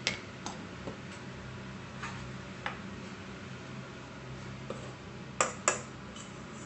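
A spoon clicking against dishware a handful of times while biscuit dough is portioned out, the two loudest clicks close together near the end, over a steady low hum.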